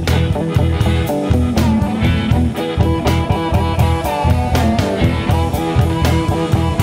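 Blues band recording: guitar playing over bass and a drum kit keeping a steady beat.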